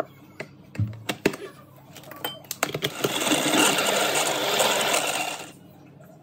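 Braun hand blender motor running on its chopper bowl for close to three seconds, the blade whirring through butter and flour and cutting them into crumbs for a shortcrust dough; it cuts off suddenly. Before it, a few knocks as the butter cubes drop into the plastic bowl and the motor unit is fitted on the lid.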